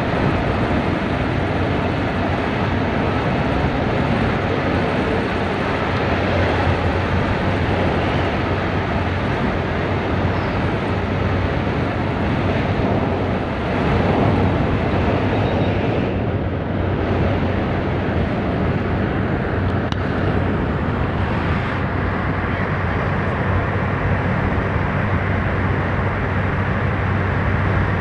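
Diesel bus engine running steadily at high revs, with wind and tyre noise, heard from inside the driver's cab at highway speed.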